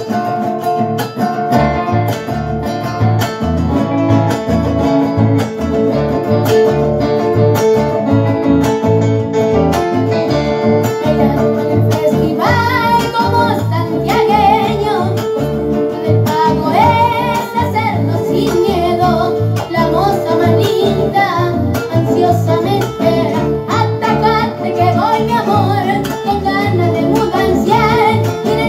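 Acoustic guitar strumming the accompaniment of an Argentine gato, a folk dance song. About twelve seconds in, a boy's voice starts singing over the guitar.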